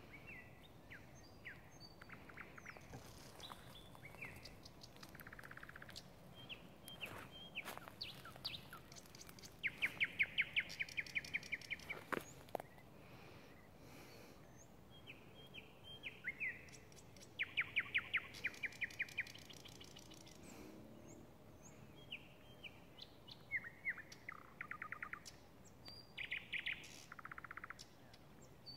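Thrush nightingale singing: phrases of fast repeated notes, loudest in two rapid rattling series about ten and seventeen seconds in.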